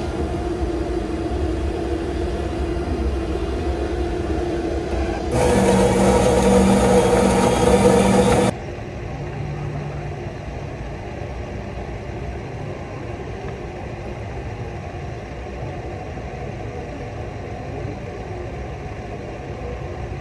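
Self-service coffee machine running as it dispenses into a mug, with a steady hum. About five seconds in, a much louder noisy stretch with a steady tone lasts about three seconds and cuts off suddenly, followed by a quieter steady hum.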